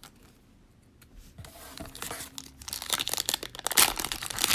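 Plastic cellophane wrapper of a Prizm football cello pack crinkling and tearing as it is opened. It is quiet for about the first second, then the crackling builds and is loudest in the last second and a half.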